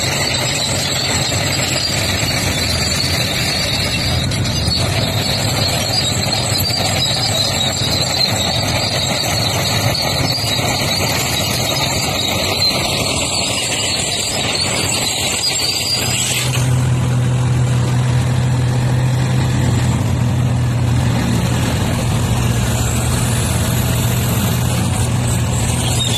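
Heavy diesel engines of mining haul trucks and an excavator running as the trucks manoeuvre, a steady low hum under a high steady whine. About two-thirds of the way through the whine stops and the engine hum gets louder.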